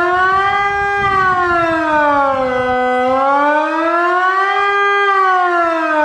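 Electronic civil-defence siren (Wiedmann & Dettwiler horn-loudspeaker sound unit driven by a Kockum Sonics ET 60/6 control) sounding the Swiss "general alarm" signal. Its loud tone glides slowly up and down, about four seconds per rise and fall.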